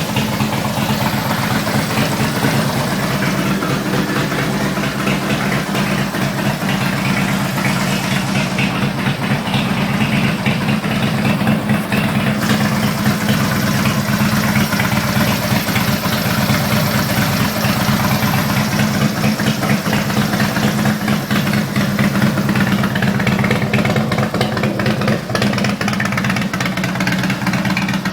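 Harley-Davidson Ultra Classic's 103 cubic inch V-twin engine idling through a Thunderheader exhaust, a loud, steady, low rumble of uneven firing pulses.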